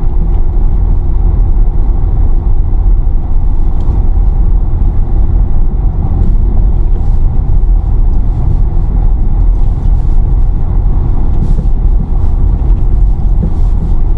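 Engine of a two-wheel-drive vehicle running hard and steady under load, heard loud and close, as it tries to climb a muddy hill.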